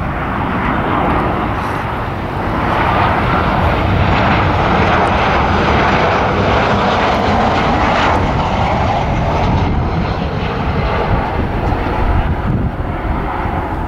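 Jet engines of a Southwest Boeing 737 on final approach at landing power, passing low overhead. The noise builds about two seconds in, holds loudest through the middle, then eases as the airliner moves away toward the runway.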